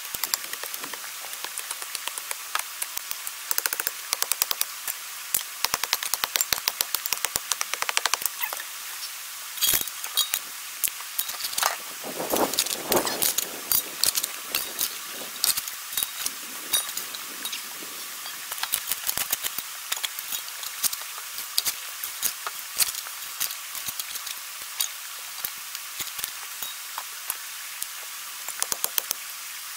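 Digging in rocky ground with a pick mattock and shovel: steady crunching and scraping of gravel and stones, with scattered clinks of stone on stone and a few heavier knocks.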